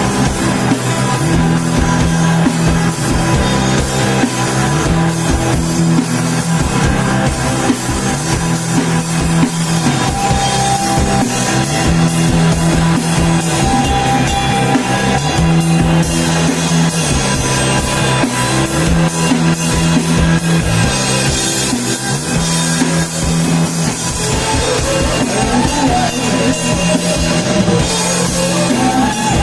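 A rock band playing live: drum kit, bass and electric guitar, with the bass repeating a steady pattern of low notes under the drums.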